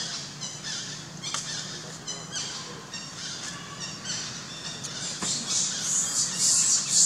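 Forest ambience: short, high-pitched chirping calls repeating every half-second or so, over a high hiss that grows louder in the last couple of seconds.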